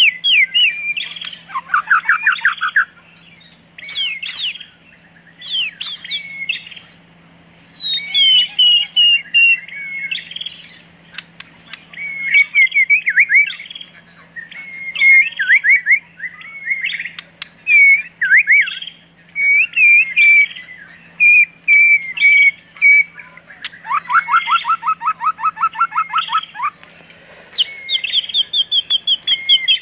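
Several birds singing and calling without a break: a busy mix of short whistled phrases and fast rattling trills, with a faint steady low hum underneath.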